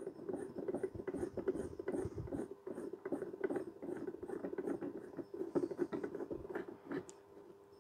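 A metal lamp fitting being screwed down by hand on the threaded tube of an old table lamp, tightening to lock the column together: a steady run of small scraping and ticking sounds of threads and parts turning against each other, with a few sharper clicks near the end.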